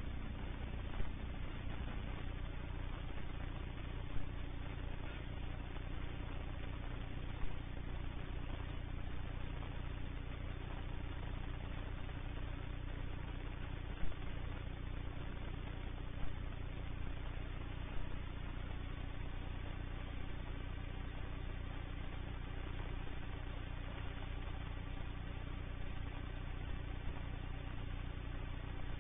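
Light aircraft piston engine and propeller running steadily at taxi idle on a Van's RV-14, with a few short clicks scattered through.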